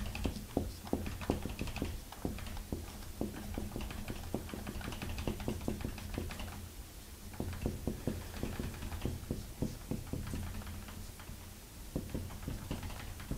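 Marker writing on a whiteboard: quick, irregular taps and short scratchy strokes over a low steady hum.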